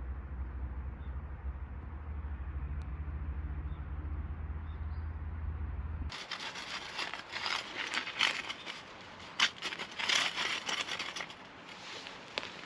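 A steady low rumble, then an abrupt change about six seconds in to irregular scraping, rubbing and crackling clicks.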